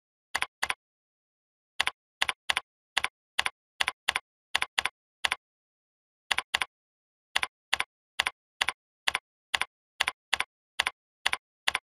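Computer keyboard typing: about 25 single key clicks at two or three a second, in uneven runs with short pauses, as a web address is typed in.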